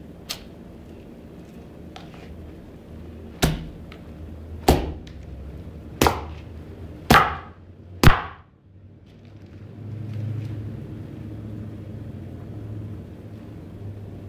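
Leather boots stomping hard on a tile floor, crushing a green lemon. A light knock comes at the start, then five heavy stomps about a second apart, and after them a low steady hum.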